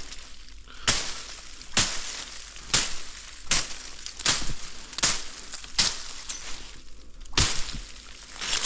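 Footsteps crunching through dry brush and undergrowth, a little under one step a second, with a short pause near the end.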